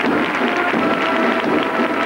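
Large crowd applauding steadily, dense clapping with a band's music faint underneath.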